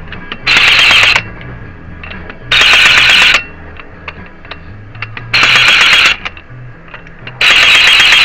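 Impact wrench running in four short bursts about two seconds apart, spinning lug nuts onto a car wheel on its lowest power setting before they are torqued by hand.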